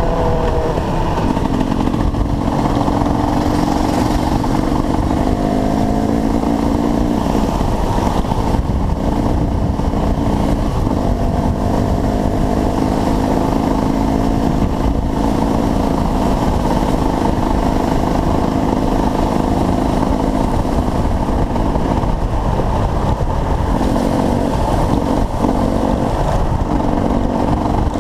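Dirt bike engines running and revving, their pitch rising and falling, over a steady rushing noise.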